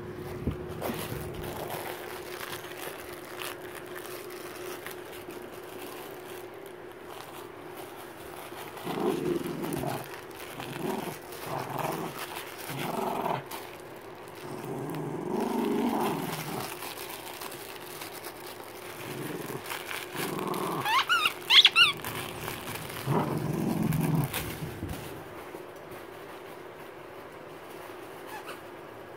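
Dog growling in play in a string of short bursts while tugging at a plush toy. A brief, sharp, high squeak rises near the end of the growling.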